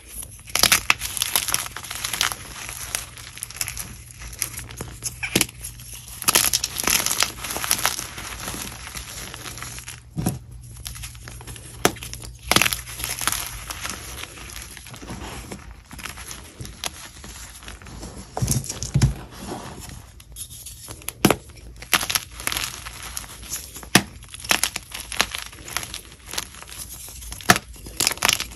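Gym chalk crunching close to the microphone as it is bitten and chewed: irregular crisp cracks and crunches with crumbly grinding between them.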